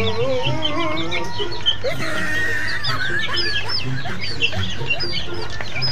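A flock of young chickens peeping and chirping: many short, high calls overlapping one another.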